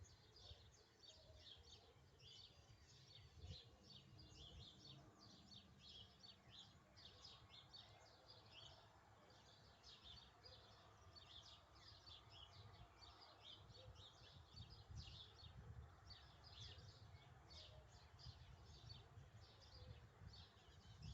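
Many small birds chirping and twittering together in fast, overlapping short calls, faint, over a low irregular rumble.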